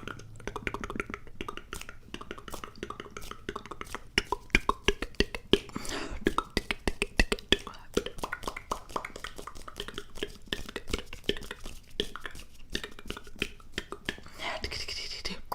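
A dense, irregular patter of small clicks and taps, of the kind made for ASMR.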